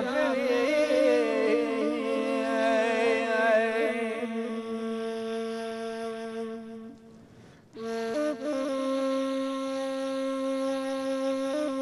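Boyer-Ahmadi folk music: a male voice ends a sung phrase with a wavering held note over a steady ney (Persian reed flute) tone, and both fade out about seven seconds in. About eight seconds in the ney comes back with long steady held notes, stepping up in pitch near the end.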